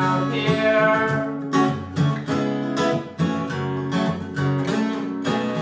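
Epiphone acoustic guitar strummed in a steady rhythm.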